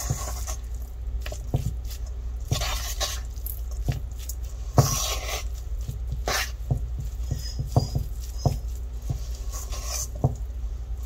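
Fork scraping and clicking against a stainless steel bowl while tossing moist flaked smoked herring, with irregular taps and short rustling scrapes over a steady low hum.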